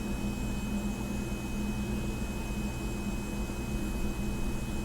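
Steady room hum with a faint high-pitched whine, even and unchanging, with no handling clicks or knocks.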